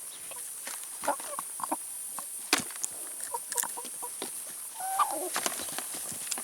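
Chickens pecking at salad and vegetables: quick, irregular pecking taps, with short clucks about a second in and again near five seconds.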